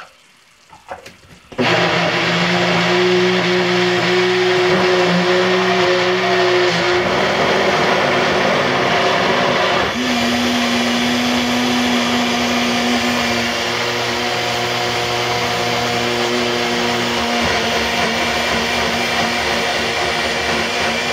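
Small personal blender switches on about a second and a half in and runs steadily, pureeing cooked butternut squash. About halfway through, its pitch shifts as the load changes, with a brief dip in level.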